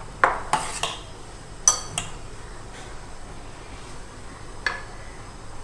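A serving spoon clinking and knocking against a bowl and a dish while custard is spooned out: a quick run of sharp knocks in the first two seconds, one of them ringing, then a single knock near the end.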